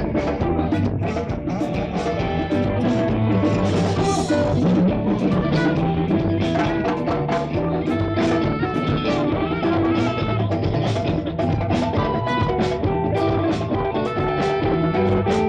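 Live band playing an instrumental stretch with guitar and drum kit, steady and loud, recorded with poor sound quality.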